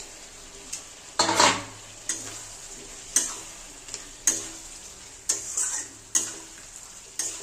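A spatula stirring and scraping fried pointed gourd and potato pieces through thick spiced masala in a metal karai, striking the pan about once a second over a low sizzle of frying. The vegetables are being tossed into masala that has already been cooked down.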